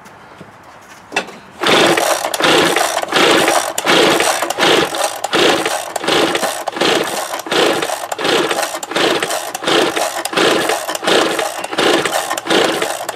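Echo PB-265L backpack blower's two-stroke engine being cranked over by its pull-start rope in quick repeated pulls, about one and a half a second, starting about a second and a half in. Each pull whirs the recoil starter and turns the engine against compression without it firing, since a compression gauge sits in the spark plug hole for a compression test.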